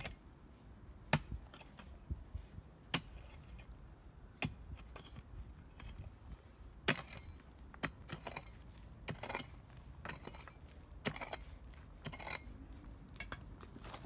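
Irregular sharp knocks and clinks from wooden boards and tools being handled and struck during batter-board work, about fifteen separate hits with no steady rhythm.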